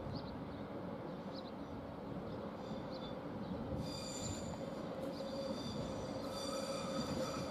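ÖBB class 4024 Talent electric multiple unit running past on the station tracks. High-pitched wheel squeal sets in about four seconds in.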